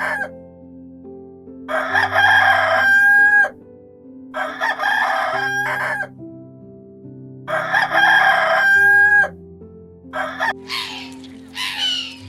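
Rooster crowing repeatedly: three long crows, each ending on a held high note, over soft background music with sustained notes. Near the end a harsher, different animal call starts.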